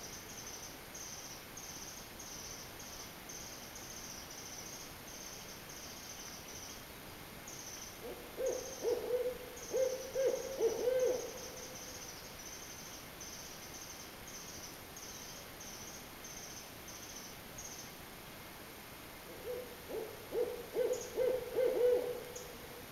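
Barred owl hooting in two short bouts of several hoots each, the first about eight seconds in and the second near the end. A faint high ticking, about two a second, runs under the first part and stops before the second bout.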